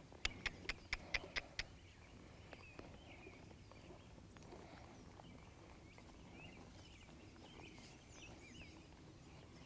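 A quick run of about seven sharp clicks, about five a second, lasting a second and a half: a rider clicking her tongue to cue a mammoth donkey to move. Then faint bird chirps over a quiet background.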